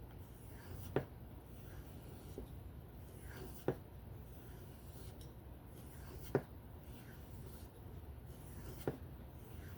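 Folding-knife blade stroked by hand across a sharpening stone, a faint scraping, with a sharp click about every two and a half seconds, four in all.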